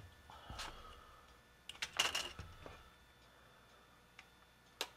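Light handling sounds on a workbench: a few scattered clicks and knocks, the loudest about two seconds in and a sharp click near the end, as a phone is set on its stand and a toy rifle is picked up from a cutting mat.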